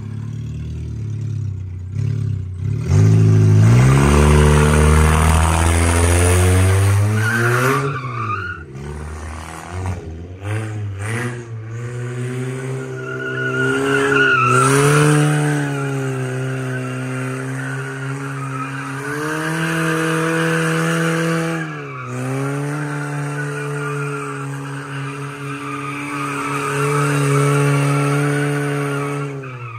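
Front-wheel-drive Ford Fusion sedan doing donuts on wet concrete. The engine is revved hard and held at high revs while the tyres spin and squeal, and it eases off and comes back on several times.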